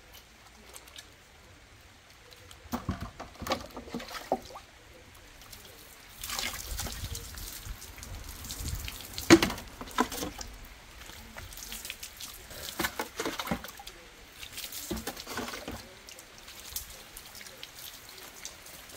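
Water being poured and splashing in irregular bursts, with a few sharp knocks; the loudest splash comes about nine seconds in.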